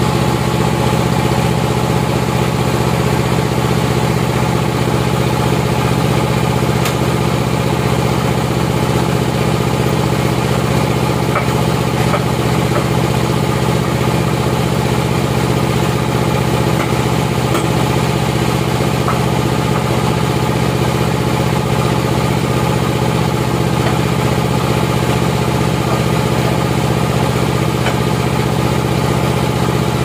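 Sawmill's engine running steadily at idle, an even hum with no change in speed and no cutting, with a few faint knocks on top.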